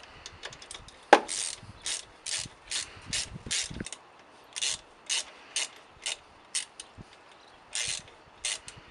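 Socket ratchet clicking as its handle is swung back and forth on a bolt: a sharp click about a second in, then short bursts of pawl clicks about twice a second, pausing twice.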